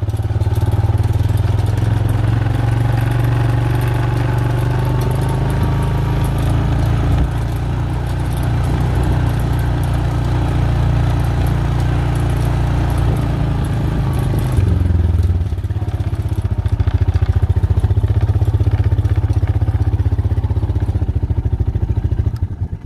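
Honda Foreman 400 quad bike's single-cylinder 400 cc four-stroke engine running as the quad is ridden across grass, its note shifting a couple of times. In the last several seconds it settles to an even, pulsing idle.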